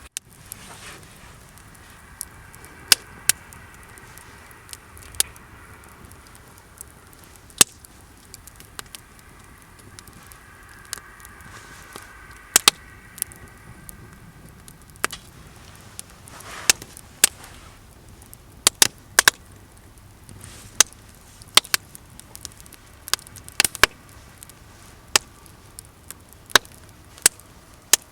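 Wood campfire burning, crackling steadily, with frequent sharp pops from the wood at irregular intervals, often more than one a second.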